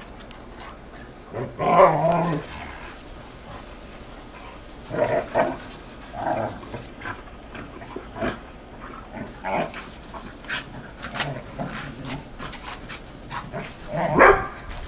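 Dogs play-fighting, barking in scattered short outbursts, with the loudest bursts about two seconds in and near the end.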